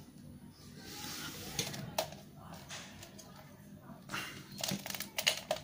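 Unboxing handling noise: packaging and plastic parts being rustled and handled, with a few sharp clicks, busiest near the end.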